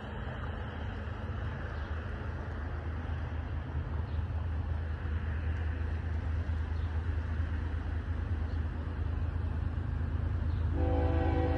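Approaching CSX freight train led by GE diesel locomotives: a low rumble that grows steadily louder, then the locomotive's multi-chime air horn sounds about eleven seconds in.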